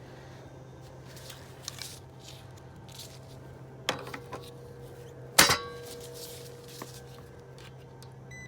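Metal clinks and knocks from working on the heat pump's cabinet. A sharp clink comes about four seconds in, and a louder knock about a second and a half later rings briefly. A steady low electrical hum runs underneath.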